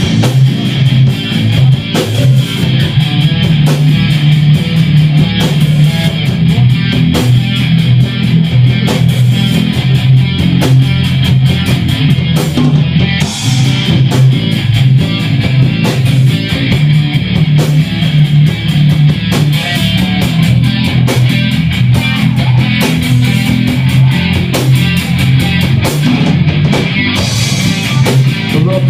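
A loud live rock band playing an instrumental intro: electric guitars over bass and drums.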